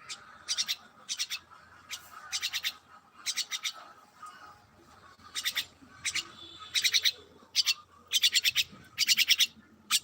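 A bird calling in short, rapid bursts of sharp clicking notes, a few notes to each burst, repeated again and again, with the bursts louder in the second half.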